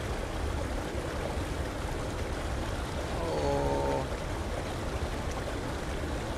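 Steady trickle and wash of shallow river water moving around a hand held in the current. About three seconds in, a short hum-like pitched sound lasts under a second.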